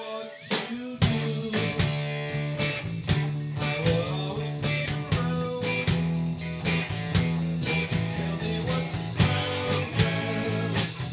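Live rock band playing electric guitars, electric bass and a drum kit with a steady beat. The band eases off right at the start and comes back in full about a second in.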